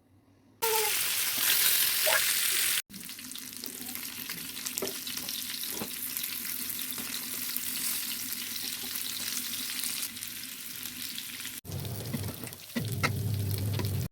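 Food sizzling and frying in hot oil in a pan, a steady crackling hiss, in a few short clips that cut in and out abruptly: loudest about a second in, then softer until a louder, deeper passage near the end.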